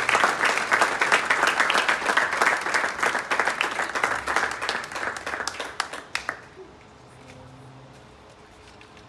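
Audience applauding, the clapping thinning out and stopping about six seconds in.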